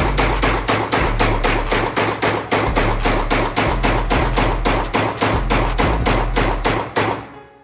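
Rapid semi-automatic fire from a Glock pistol emptying the magazine as fast as the trigger can be pulled, about five shots a second, stopping about seven seconds in.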